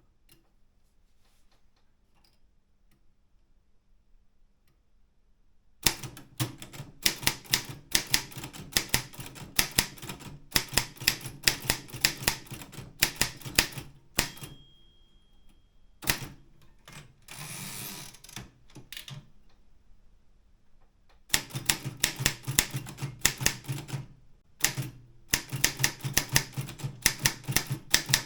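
Optima M12 manual office typewriter: faint quiet for a few seconds, then rapid key strikes from about six seconds in. Midway the margin bell rings once, the carriage is pushed back with a sliding sound lasting about two seconds, and fast typing resumes, with one brief pause.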